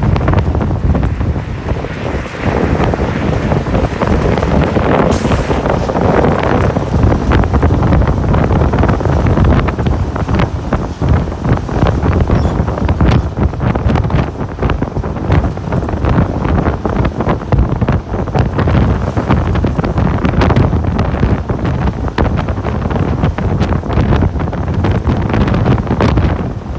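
Strong wind buffeting the microphone, a loud, continuous, gusty rumble.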